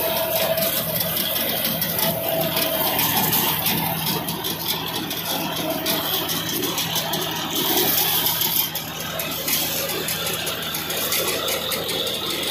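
John Deere 5405 tractor's diesel engine running steadily under load as it pulls through standing cotton plants, cutting the stalks, with a mounted seed drill working behind. Rattling from the implements and many small snaps and ticks of stalks run over the engine sound.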